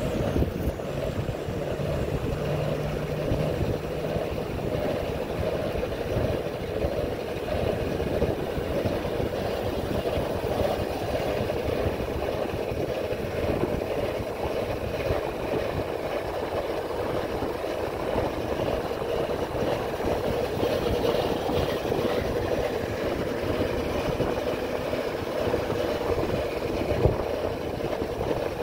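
Steady rumbling noise of a bike in motion, mostly wind buffeting the microphone, unbroken and even in level.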